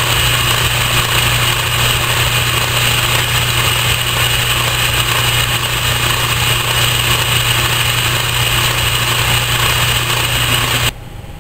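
Metal lathe running steadily with a steel workpiece spinning in the chuck: a steady low motor-and-drive hum with a thin high whine over it, stopping abruptly near the end.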